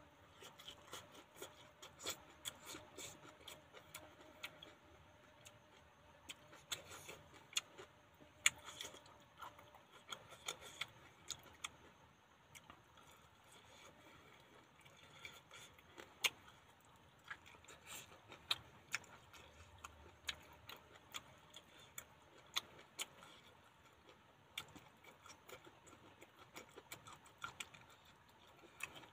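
A person eating with the fingers from a metal plate: faint, irregular clicks and ticks of fingertips picking at food on the plate, with chewing.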